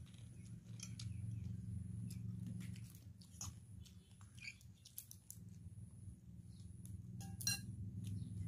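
Cooked prawn shells being peeled apart by hand: scattered small crackles and clicks, with one louder snap near the end, over a low steady hum.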